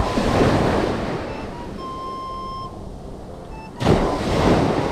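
Waves breaking on a sandy beach, twice, about four seconds apart. Each is a sudden rush of surf that fades over a second or two.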